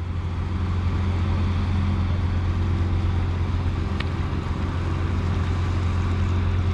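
Outboard motor of a small aluminium boat running steadily as it draws near, a constant low drone. A single faint tick about four seconds in.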